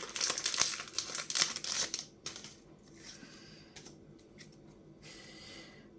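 Foil trading-card booster pack being torn open and crinkled, loudest for about the first two seconds, then quieter rustling and a few small clicks.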